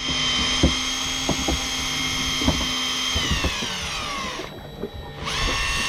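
Electric fishing reel motor winding in line with a steady high whine. About three seconds in it slows, its pitch sliding down, then cuts out for under a second before starting up again with a quick rising whine and running steady. Light knocks sound here and there.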